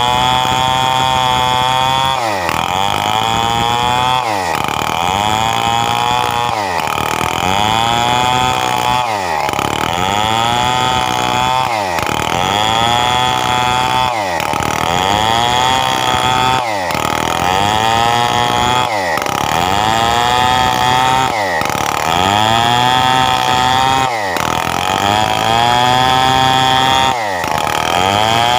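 Stihl 070 two-stroke chainsaw running at high revs while sawing coconut-palm wood into beams. Its engine note dips and climbs back in a regular cycle about every two and a half seconds, as the chain loads up in the cut and recovers.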